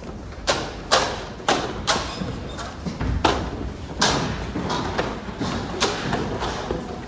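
Footsteps going down a staircase and then across a flagstone floor, about two sharp steps a second.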